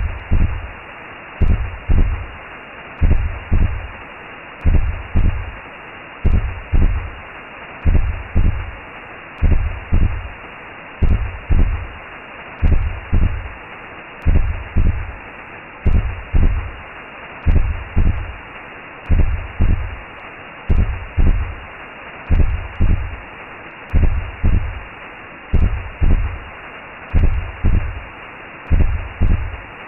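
Recreated womb sound: a slow, even double-thump heartbeat, about one beat every second and a half, over a constant muffled rushing noise.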